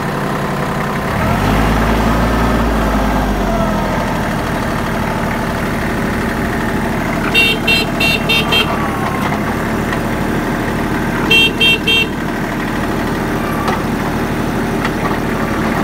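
Kubota L1-235 tractor's three-cylinder diesel engine running at about idle, swelling deeper for a couple of seconds near the start. Its horn is tooted in two quick strings of short beeps, five and then three, about four a second.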